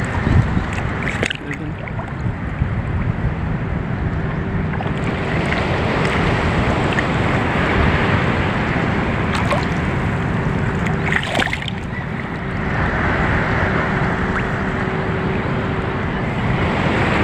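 Sea water sloshing and lapping close to the microphone as a steady rushing noise, with a few sharp knocks and a faint steady hum through the middle.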